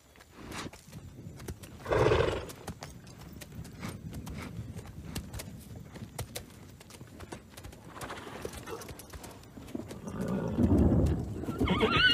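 A horse's hooves clopping on the ground, with a brief louder sound about two seconds in. Near the end the horse neighs, a high wavering whinny.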